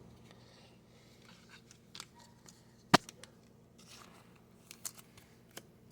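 Trading cards being handled: faint scattered ticks and rustles, with one sharper click about three seconds in.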